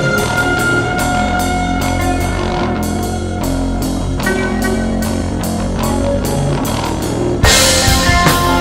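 Instrumental break of a rock song: a drum kit keeps a steady beat under guitar and sustained notes, and the whole band comes in louder and brighter about seven and a half seconds in.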